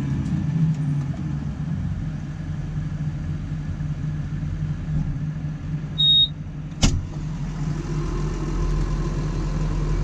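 A farm tractor's diesel engine running steadily. About six seconds in comes a short, high beep, and just after it a single sharp knock.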